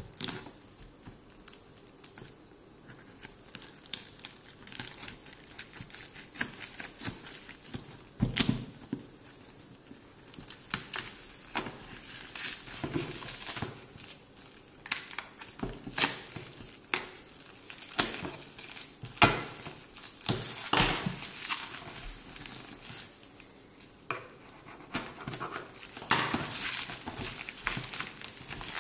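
Black plastic wrapping being torn and crumpled off a cardboard parcel by hand: irregular crinkling with sharper ripping sounds now and then.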